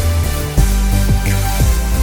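Background music with a steady beat and sustained low bass notes.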